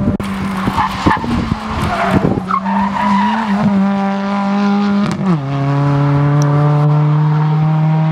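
Hyundai i20 rally car's engine pulling hard, its note slowly climbing, with rough noise and clicks over the first few seconds. A little past five seconds the pitch drops sharply as it shifts up a gear, then climbs again as the car accelerates.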